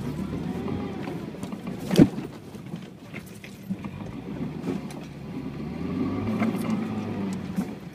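UAZ Patriot engine running under load while driving off-road, with creaks and clicks from the body and one sharp knock about two seconds in. The engine swells louder around the last couple of seconds.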